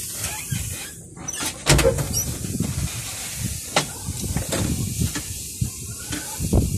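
Whirlwind wind rushing and buffeting the phone microphone, with a steady hiss and a few sharp knocks; a heavier gust hits about two seconds in.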